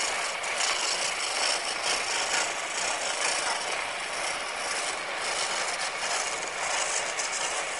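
A turning gouge cutting a spinning green-wood spindle on a treadle lathe: a steady, rough shaving hiss as the tool takes the wood down.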